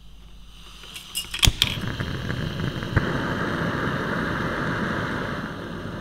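Kovea TKL-N894 butane gas lantern being lit: a few sharp clicks about a second in, then the steady hiss of gas burning at the mantle, which eases a little near the end as the control knob is turned.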